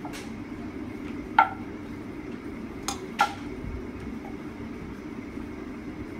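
A metal spoon clinking against a stainless steel bowl three times, each clink ringing briefly; the first is the loudest and the last two come close together. A steady low hum runs underneath.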